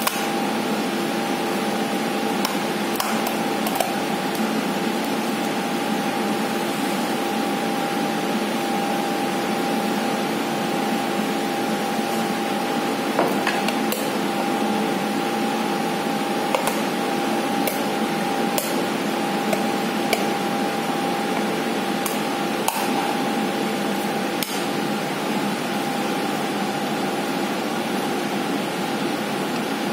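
Scattered light clicks and taps of acrylic panels being slotted and pressed together by hand, over a steady machine hum with a few constant tones.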